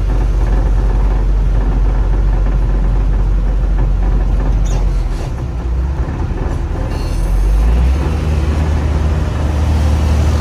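Heavy sand-hauling truck's diesel engine running on the move, a deep steady drone whose pitch steps up about halfway through.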